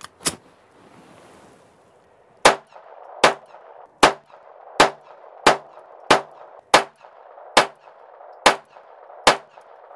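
Ruger SR22 .22 LR pistol fired ten times in steady succession, under a second between shots, after a single click of the slide being racked near the start. It is shooting standard-velocity ammunition, cycling every round.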